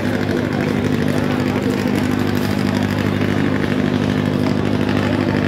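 Steady low mechanical hum of a running engine, holding one even pitch throughout, with faint voices murmuring in the background.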